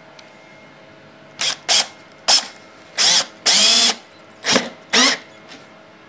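Cordless drill/driver run in about seven short bursts, the longest near the middle, its motor whine rising as each burst spins up, as it drives a drywall screw into a pine board.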